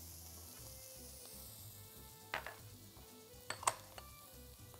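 Finely chopped onion tipped into hot oil in a non-stick frying pan, sizzling faintly. A few sharp taps come about halfway through and again a little later.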